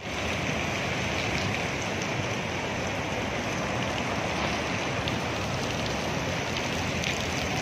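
Rain falling steadily: an even, dense hiss with faint scattered drop taps.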